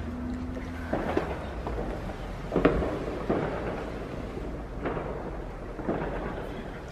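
Scattered bangs and crackles of fireworks, about five short cracks a second or so apart, over a low steady rumble.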